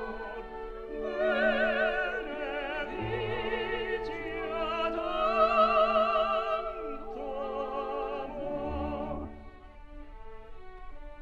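Background music: an operatic voice singing long held notes with wide vibrato over orchestral accompaniment, growing quieter near the end.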